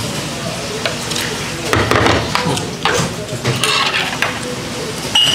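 Metal chopsticks and tableware clicking against ceramic dishes: several light clicks, then one short ringing clink near the end, over steady background noise.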